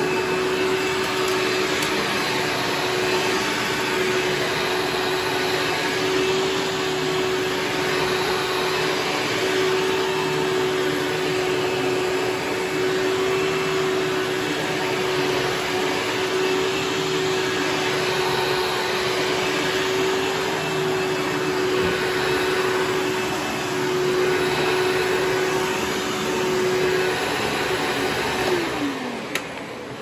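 Hoover Supreme Self-Propelled (Power Drive Supreme) upright vacuum running on carpet with a steady motor whine. Near the end it is switched off, and the motor's pitch falls as it winds down.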